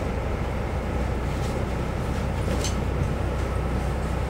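Cabin sound of a moving Alstom Coradia LINT 54 diesel railcar: a steady low running rumble of engine and wheels on the track, with two brief faint high ticks in the first three seconds.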